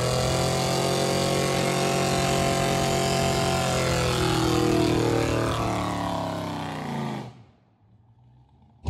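Fox Body Mustang doing a burnout: the engine held at high revs with the rear tyres spinning on the pavement, a steady engine note over a hiss of tyre noise. The revs sag slightly, and then the sound dies away and cuts off about seven seconds in, leaving near silence.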